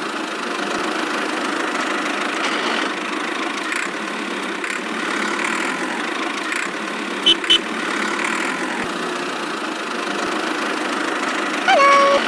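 Small motor of a miniature DIY construction machine running steadily, with two short clicks about seven seconds in and a short beep near the end.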